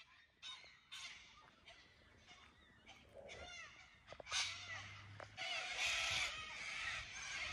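Birds calling outdoors. A run of short swooping calls comes about three seconds in, and from about halfway on it becomes a busier, denser chatter of calls.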